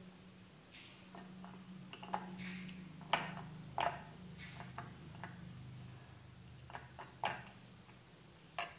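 Steel spoon pressing and scraping beetroot pulp in a metal strainer to squeeze out the juice, with about five sharp clinks of spoon against strainer, over a steady low hum.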